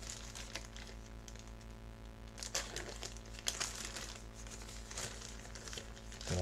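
Plastic packaging bag crinkling as it is handled and opened, with louder crackles from about two and a half seconds in, over a steady low electrical hum.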